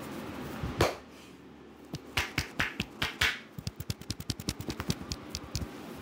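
Barber's fingers snapping in a man's hair during a head massage (hair cracking): one sharp snap about a second in, a few louder snaps a little later, then a fast run of lighter clicks.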